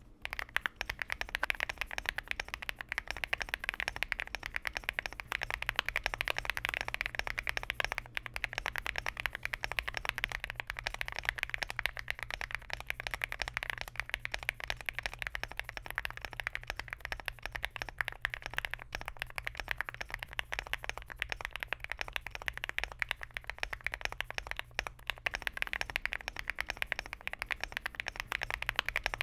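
Fast, continuous typing on a Lucky65 v2 mechanical keyboard with an FR4 plate and Keygeek thocky linear switches: a dense stream of keystrokes bottoming out and springing back.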